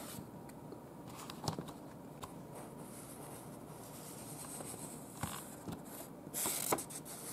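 Paper pages of a booklet being handled and turned: faint rustling with a few light ticks, and a brief louder rustle about six and a half seconds in.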